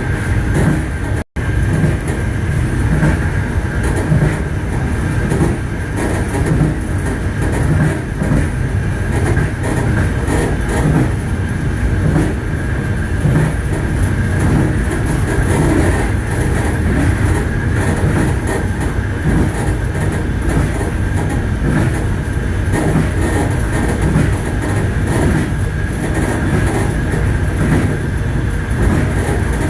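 Passenger train running on the rails, heard from the last carriage: a steady rumble of wheels on track with the clickety-clack of wheels over the rail joints. The sound cuts out for an instant about a second in.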